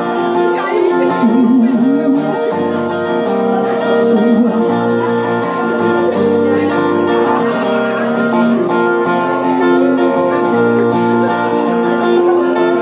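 Acoustic guitar strummed steadily through a run of chords in an instrumental break of the song, with the bass notes changing every second or two.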